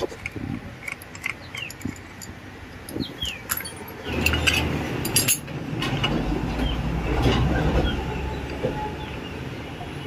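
Small metal clinks and taps as a motorcycle's clutch assembly (hub, plate pack, retaining nut and washer) is worked loose and slid off its shaft by hand. A low rumble comes in about four seconds in and fades by about eight.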